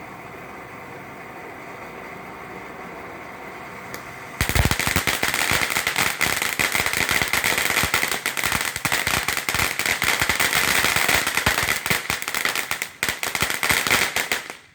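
Firework fountain hissing steadily, then about four seconds in switching abruptly to loud, dense crackling, a rapid rattle of tiny pops that runs about ten seconds before it stops.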